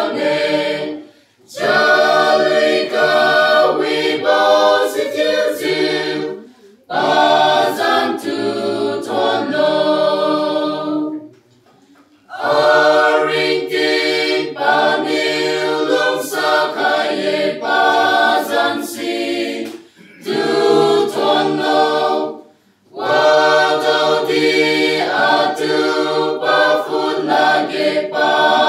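Mixed choir of young men and women singing unaccompanied, in sung phrases broken by short breaks for breath.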